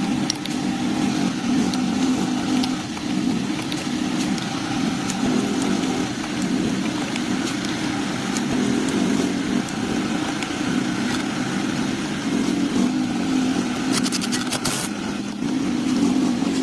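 A motor running steadily, with a cluster of rapid clicks about two seconds before the end.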